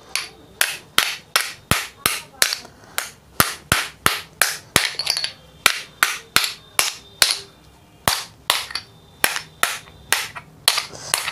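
Hard hammer tapping a new ball bearing onto the armature shaft of an RO booster pump motor, about three sharp metallic strikes a second, driving it on evenly to a tight fit.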